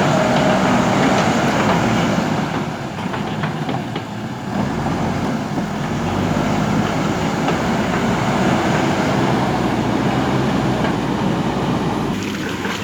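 Diesel engine of a JCB backhoe loader running steadily while the machine works, easing slightly about two seconds in.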